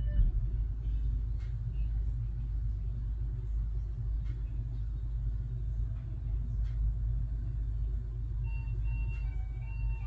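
Steady low rumble throughout, with a few faint clicks. Near the end a slow tune of held notes comes in.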